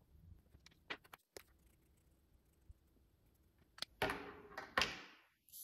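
Faint ticks of a fine-tip ink pen on paper, then two louder rustles of a sheet of paper being handled, about four and five seconds in.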